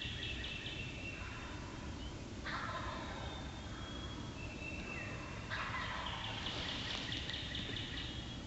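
Wild turkey gobbling, three rattling calls with sudden starts, near the beginning, about two and a half seconds in and about five and a half seconds in.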